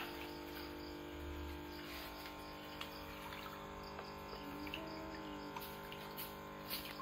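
Steady hum of an aquarium pump, with faint water sounds and a few small clicks.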